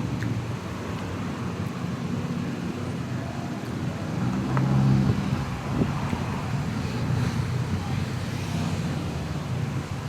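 Road traffic: a steady low rumble of passing vehicles, swelling as one passes about halfway through, with a few faint clicks.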